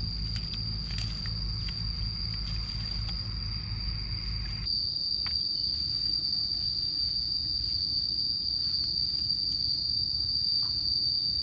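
Insects droning steadily at one high pitch. A low rumble with a few light clicks sits under it in the first half and cuts off abruptly about halfway through.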